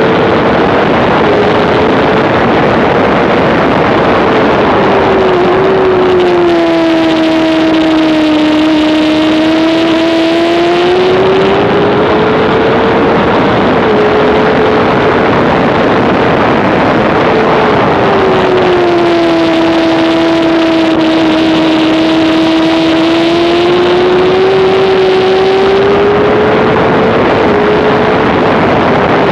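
2007 Honda CBR600RR inline-four engine at racing revs, heard onboard: a high, steady engine note that sags to a lower held pitch twice, about six seconds in and again about eighteen seconds in, each time climbing back up. All of it plays over a dense rush of wind noise.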